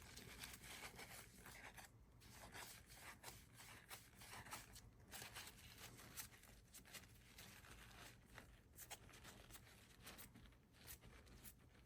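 Faint rustling and rubbing of a paper towel wiping a pinball part clean, in short scratchy strokes over a low steady hum.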